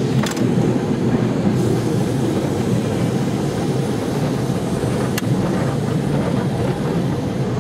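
Electric tram running along its track, a steady rumble of wheels and running gear on the rails, heard from the tram's open deck. Two sharp clicks come through, just after the start and about five seconds in.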